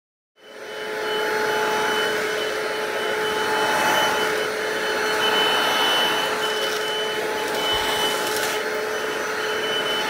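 Hoover Cruise 22-volt cordless stick vacuum running on a hard floor, a steady motor whine with a high tone over a rush of airflow. It starts about half a second in.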